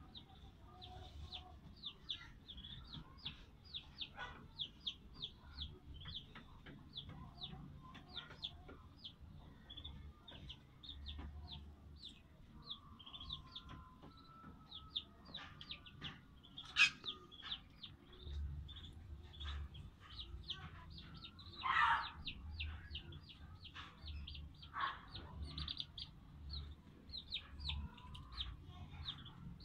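Ducklings peeping: a steady stream of short, high peeps while they feed. A few louder calls stand out, the loudest about two-thirds of the way in.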